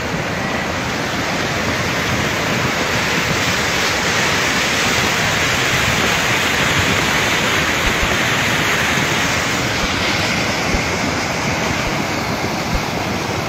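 Muddy floodwater of a flash-flooding river rushing past, a steady, unbroken noise of turbulent water.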